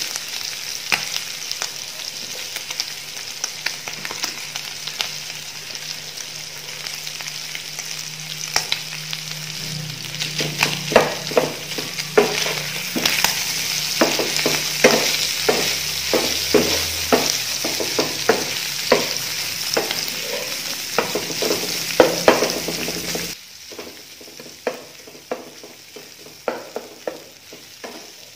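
Meat and sliced red onions sizzling in a hot oiled non-stick frying pan while being stir-fried, with repeated taps and scrapes of a spatula against the pan. The sizzle cuts down sharply near the end, and quieter stirring taps go on.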